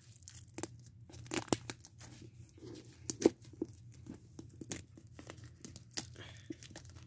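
Plastic shrink wrap being torn and peeled off a Blu-ray box set by hand: scattered crinkling crackles and clicks, with sharper snaps about a second and a half in and again around three seconds.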